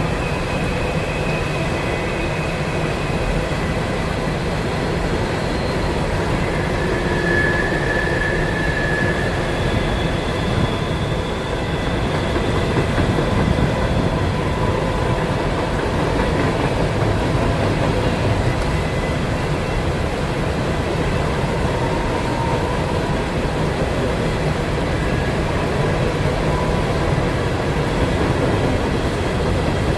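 A train rolling past on the riverside tracks: a steady, continuous rumble of rail cars, with faint high squealing tones coming and going.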